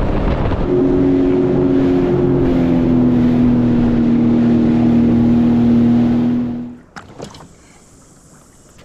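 Sea-Doo FishPro Trophy jet ski running at speed over flat water: a steady engine drone whose pitch sinks slightly, over the rush of spray. It cuts off suddenly about seven seconds in, leaving quiet water with a couple of faint knocks.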